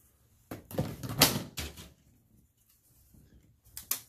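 Hard plastic model-kit sprues clattering as they are handled and set down on a wooden table: a cluster of knocks and rattles in the first two seconds, then a couple of sharp clicks near the end.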